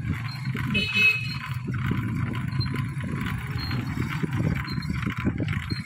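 Strong dust-storm wind buffeting the phone's microphone: a dense, irregular low rumble. A brief high tone sounds about a second in.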